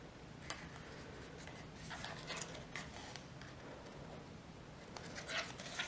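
Faint rustling and scraping of cardstock and ribbon handled by hand as ribbon is pressed onto double-sided tape around a card box lid. There is a small tick about half a second in, light brushing sounds a couple of seconds in, and a slightly louder scrape near the end.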